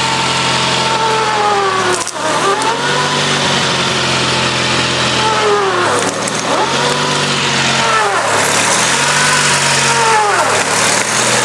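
Ford garden tractor's twin-cylinder Kohler engine running hard while the tractor strains to pull a stump on a rope. A whine over the engine drops and recovers about four times as the load comes and goes.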